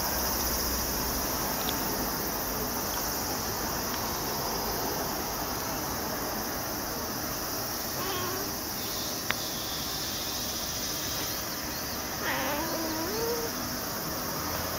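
Domestic cat meowing twice: a short faint meow about eight seconds in, then a longer, louder meow that bends in pitch about twelve seconds in. A single sharp click falls between the two calls, over a steady background hiss.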